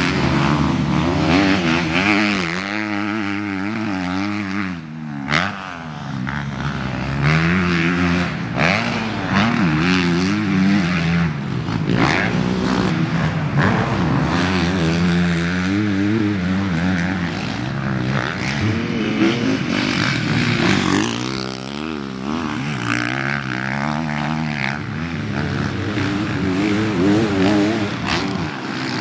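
Honda CRF four-stroke motocross bikes on the track, their engines revving hard and dropping off again and again, rising and falling in pitch as they accelerate out of corners and shift through the gears.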